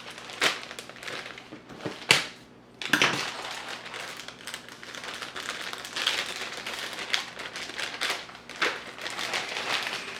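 Plastic packaging crinkling and rustling as kit parts are unwrapped by hand, with two sharp clicks in the first couple of seconds.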